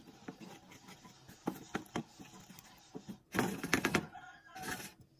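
Wooden spoon stirring a bubbling peppercorn cream sauce in a nonstick frying pan: irregular soft clicks, knocks and wet scrapes, louder for a moment about three and a half seconds in.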